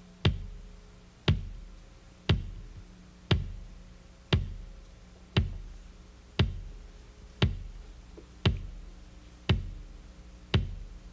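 Steady musical beat: a single sharp drum-like hit about once a second, each ringing out and fading before the next, with a low sustained tone beneath. This is the backing beat that the song is then sung over.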